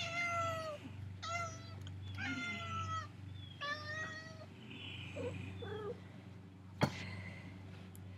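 Tabby cat meowing loudly and repeatedly, four drawn-out cries in quick succession and then a few shorter, lower calls: the cat is crying to be let outside. A single sharp knock sounds about seven seconds in.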